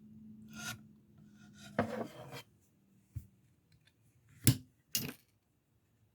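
Handling noises of a large folding pocket knife: brief rubbing and scraping, a soft thump, then two sharp clicks about half a second apart.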